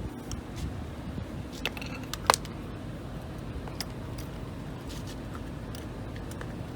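Scattered small metal clicks and taps as a grease gun is handled and its barrel screwed back onto the head after loading a grease cartridge, over a low steady rumble. The sharpest click comes about two seconds in.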